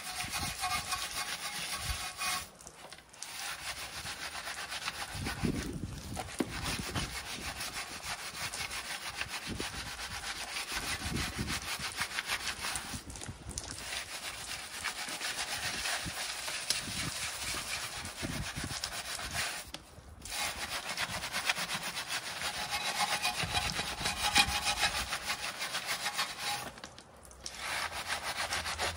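Long-bristled wheel brush scrubbing a soapy 16-inch alloy wheel, a fast back-and-forth scratchy rubbing. It breaks off briefly about five times.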